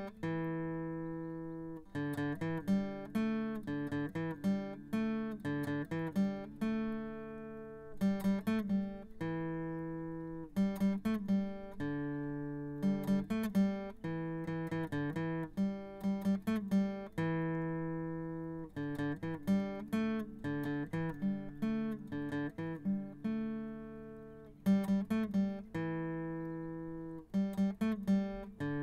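Background music: an acoustic guitar instrumental picking a repeating pattern of plucked notes that ring and fade.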